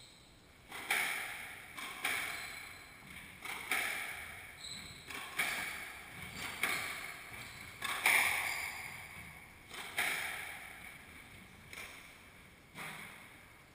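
Squash rally: the ball cracking off racquets and the walls about once a second, a dozen or so hits, each ringing with a long echo in the enclosed court, with short high shoe squeaks on the wooden floor between shots. The hits stop a second before the end.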